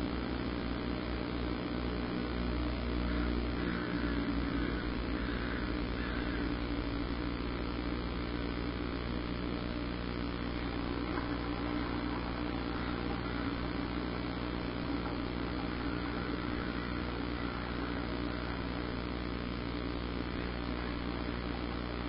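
A steady low machine-like drone holds a constant pitch throughout, with several fixed low tones over a faint even hiss.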